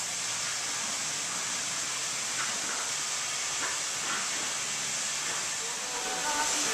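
Steady hiss of water being sprayed as a fine mist onto the ice of a sliding track.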